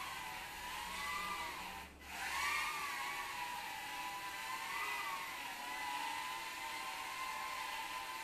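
High-pitched whine of a micro FPV quadcopter's tiny coreless motors and propellers in flight, its pitch wavering up and down with the throttle. About two seconds in it briefly cuts out, then surges back louder.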